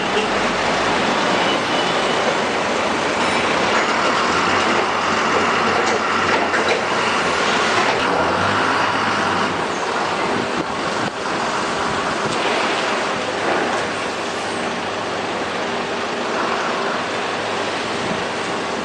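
Steady, loud machinery noise with a faint low hum and a few light knocks.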